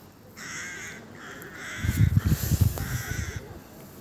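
Crows cawing: a few harsh calls, each about half a second long. About two seconds in, a louder low rumble comes in and lasts for about a second and a half.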